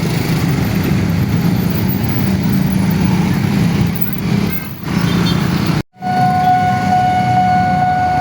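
A train running over a level crossing, a steady rumble, for about the first five seconds. After a brief break, the crossing's alarm siren sounds one steady high tone.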